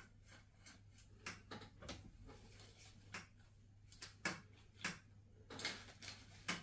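Faint, irregular clicks and taps of curtain rings and hooks knocking against a metal curtain rod as a curtain panel is worked along it, about a dozen over a few seconds.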